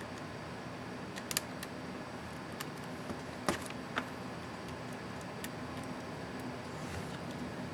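A handful of small, sharp plastic clicks and taps from an ASUS ZenBook UX31E Enter keycap and its clips being handled and fitted, spread over the first half, over a steady background hiss.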